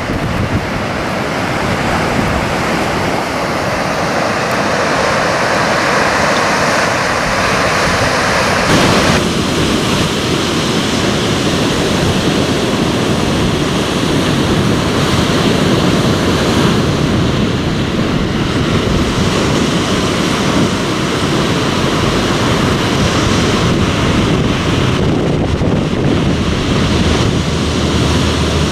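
Steady wash of surf breaking on a beach, with wind buffeting the microphone. The sound shifts abruptly about nine seconds in.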